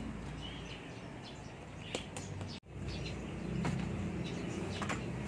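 Birds chirping now and then over a low steady background hum, with a few faint clicks. The sound drops out for an instant about halfway through.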